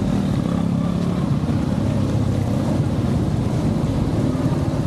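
Wind buffeting the microphone of a bicycle-mounted action camera as it rides through rain, a steady low rumble over the hiss of rain and wet road. A faint steady hum sounds for about a second shortly after the start.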